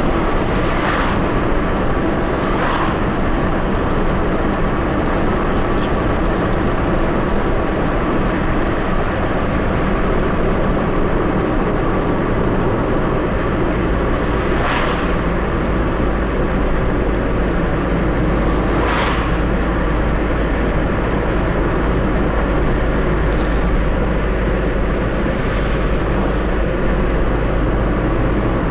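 Steady road and engine noise of a Mercedes-Benz car driving at speed, heard from inside the car, with the brief whoosh of oncoming cars passing several times.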